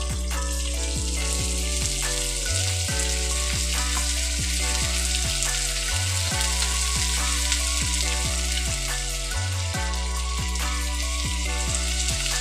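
Raw chicken pieces frying in hot oil with chopped onion in a pan: a steady sizzle. Background music with a stepping bass line plays underneath.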